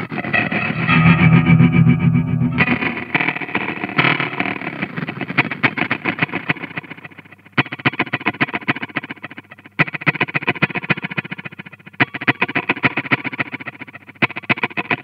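Electric guitar played through an Old Blood Noise Endeavors Dweller phase repeater/delay pedal. The notes are broken up into rapid, stuttering repeats. In the second half a new phrase starts about every two seconds and decays between them.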